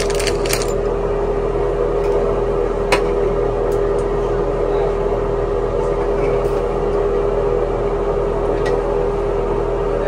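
A steady electrical hum with a held tone. Over it come a sharp click about three seconds in and a few faint clicks later, from the plastic fill valve and its hose being handled and fitted.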